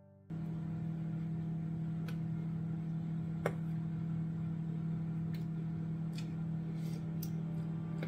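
Steady low hum from a kitchen appliance at the stove, cutting in abruptly just after the start, with a few light clicks of a serving spoon against a stainless steel soup pot as the soup is stirred and tasted.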